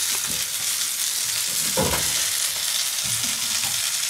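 A fresh ling fillet sizzling steadily in a thin layer of hot oil in a frying pan, the oil hot enough to spit. A few soft low knocks sound as the fish is worked in the pan, the strongest about two seconds in.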